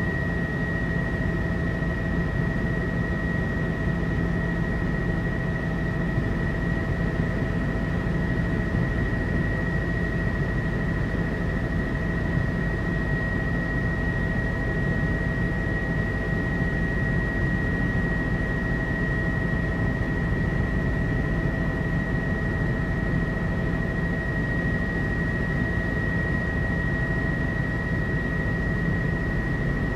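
Helicopter in cruising flight heard from inside the cabin: a steady drone of engine and rotors with a constant high whine over it.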